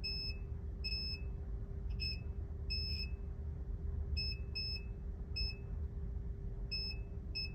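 Multimeter continuity beeper giving about ten short, irregularly spaced high beeps as the probes touch test points on a MacBook logic board while hunting for a short, over a steady low hum.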